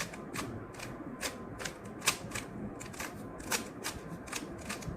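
Rubik's cube layers being turned through a solving algorithm: a run of sharp plastic clicks, about two or three a second at an uneven pace.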